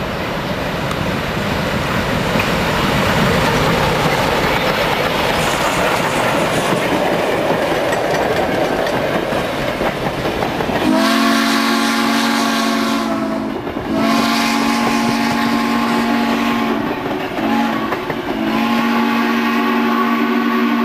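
Reading & Northern 4-6-2 Pacific steam locomotive #425 and its train passing close by, a dense rumble of the running engine and wheels on the rails. About halfway through, its steam whistle blows four blasts, long, long, short, long, the grade-crossing signal.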